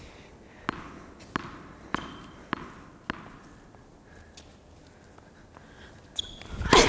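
A tennis ball bounced five times on a hard indoor court, about every 0.6 s, before a serve. Near the end comes a short squeak and then a loud sharp racket strike on the ball, the loudest sound.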